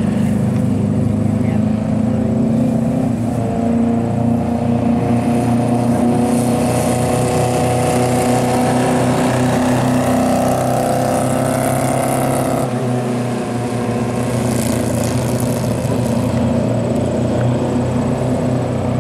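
TQ midget race car engines running at speed on a paved oval, a steady engine note whose pitch rises as a car accelerates along the straight. The sound shifts abruptly about two-thirds of the way through.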